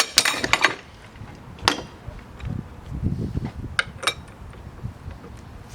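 Hand tools clinking and clanking against metal while working on a power steering pump: a quick cluster of clicks in the first second, a single knock, then two short ringing metal strikes about four seconds in, with low handling and shuffling noise between.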